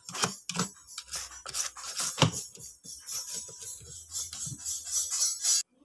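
A small brush scrubbing a printed circuit board with thinner in quick, irregular scratchy strokes, cleaning burnt carbon off the board. It stops suddenly near the end.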